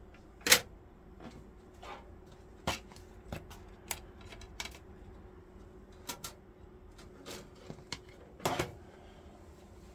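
Irregular clicks and knocks of hands swapping the disc in the workstation's optical drive, the loudest knock about half a second in, over a faint steady hum.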